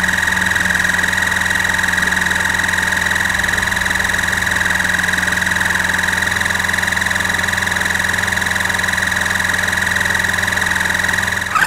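CS Medica AquaPulsar OS1 oral irrigator's pump running steadily, a loud, even mechanical drone with a steady whine above it.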